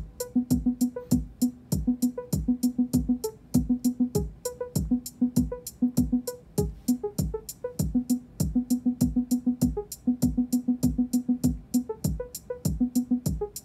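Eurorack modular synthesizer running a sequenced pattern: a steady stream of clicky percussive hits and kick-drum thumps, about four to five a second, under short plucked synth notes. The notes repeat at one pitch in runs with gaps, with a few higher notes.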